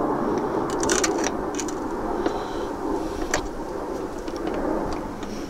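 A few light metallic clicks and clinks as a door hinge pin bolt and nut are handled and fitted into a truck door's hinge bracket, over a steady background noise.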